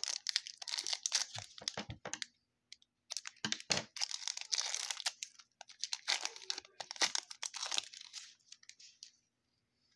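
Trading-card pack wrapper being torn open and crinkled by hand, in three stretches of crackling with short pauses between.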